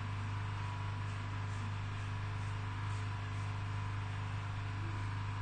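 A steady low hum with a constant hiss over it.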